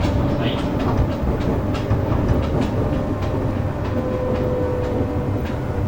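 Running sound of a JR West 201 series electric train: a steady low rumble of wheels on rail with a string of clicks over the rail joints, and a faint steady whine running under it.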